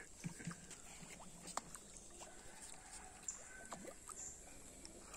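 Faint, scattered plops and ticks at the surface of a pond as fish feed, over quiet outdoor ambience.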